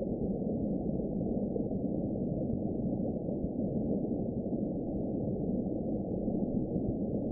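Deep-ocean underwater ambience sound effect: a steady, muffled low rumble with nothing in the higher range.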